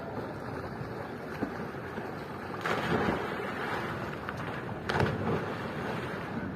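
Sea surf washing in with wind on the microphone: a steady rush, with two louder surges, one just before the middle and one near the end.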